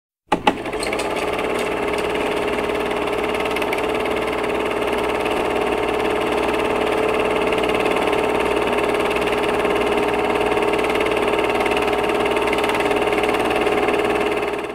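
A steady, dense drone of many held tones, opening with two sharp clicks and cutting off abruptly near the end.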